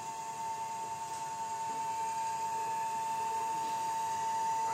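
A DC motor running on a Global THD-02 DC drive with a steady, high electrical whine, growing slightly louder toward the end.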